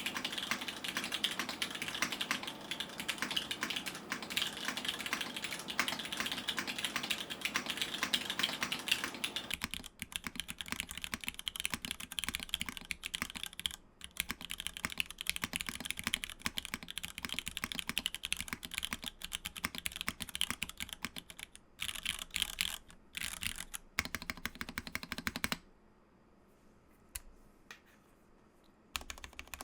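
Typing on a Hand Engineering 2000mini SE mechanical keyboard with an aluminium plate, unlubed Cherry MX2A Black linear switches and KKB Soju keycaps, a steady stream of keystroke clacks. The typing is fast and dense for about the first ten seconds, then more spaced out. It pauses for about three seconds near the end, then starts again.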